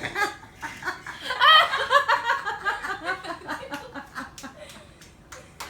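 Laughter in bursts, loudest about a second and a half in and trailing off toward the end.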